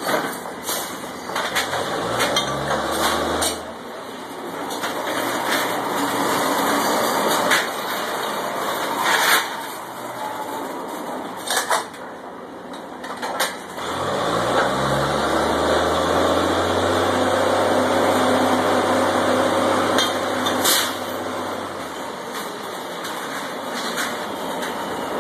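Drilling rig engine revving up twice, the second time held for several seconds, as pipe is worked on the rig floor. Sharp clanks of the steel tongs and spinning chain against the drill pipe are heard throughout.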